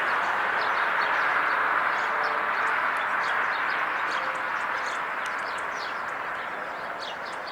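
A passing vehicle's rushing noise fading steadily away, with small songbirds chirping in short high calls throughout.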